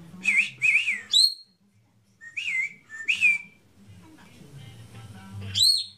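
Pet parrot whistling: a string of short, loud, high calls with a wavering pitch, two of them ending in a sharp upward-sweeping whistle, one a little past a second in and one near the end.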